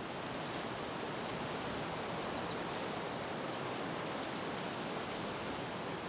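Steady forest ambience: an even, unbroken rushing hiss with no distinct calls or knocks.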